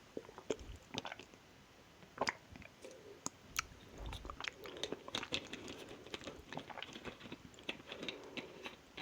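Close-miked ASMR eating sounds: chewing a soft, sticky mochi, with many quick wet mouth clicks and smacks.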